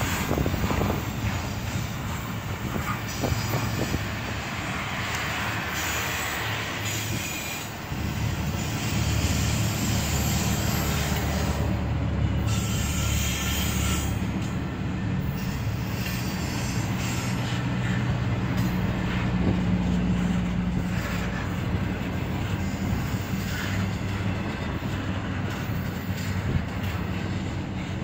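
Double-stack intermodal freight train rolling past: a steady rumble of loaded well cars on the rails, with wheel squeal now and then.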